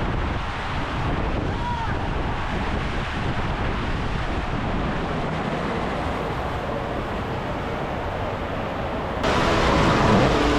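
A steady rushing noise like surf or wind. About nine seconds in it cuts abruptly to a louder, busier noise.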